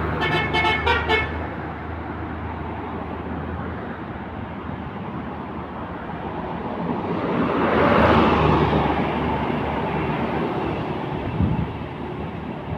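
Bus telolet (Basuri) multi-tone musical horn sounding a quick run of toots that stops about a second in, over traffic noise. Then a vehicle passes, its rush of road noise swelling and fading about two-thirds of the way through.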